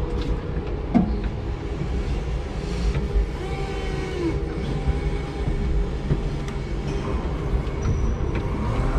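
A 5-ton electric forklift's mast and hydraulics lowering a raised pallet, heard from inside the cab: a steady mechanical hum with faint electric motor whines and a clunk about a second in.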